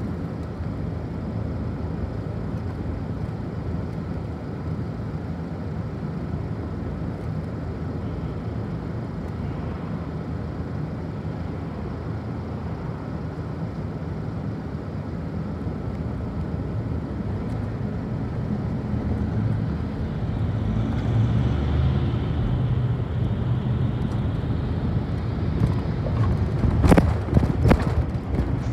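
City bus engine running with a steady low rumble while stopped in traffic, growing louder about twenty seconds in. A few sharp knocks come near the end.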